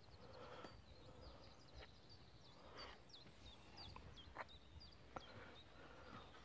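Faint birdsong: a small bird singing a quick run of high, falling chirps, with a few soft clicks among them.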